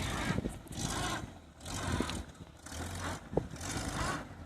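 Off-road VW Polo's engine running with a low steady hum, while bursts of rushing noise come and go as the car struggles stuck in mud.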